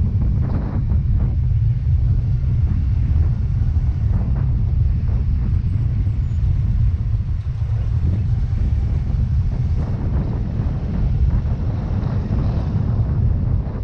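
Wind rushing over the microphone of a moving Yamaha Mio Gravis scooter, a steady low rumble with occasional brief gusts, with the scooter's engine and road noise underneath.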